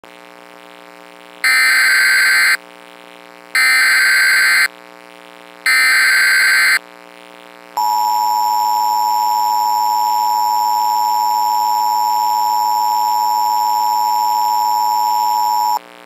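Emergency Alert System broadcast tones: three roughly one-second bursts of screeching SAME header data, then the EAS two-tone attention signal (853 and 960 Hz together), held steady for about eight seconds. Together they open an emergency alert.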